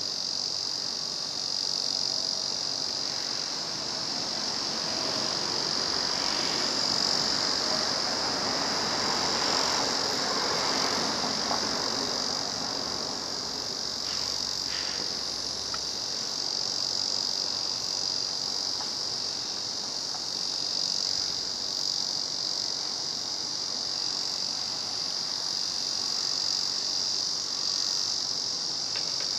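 Cicada song: a steady, high, continuous buzz with no breaks.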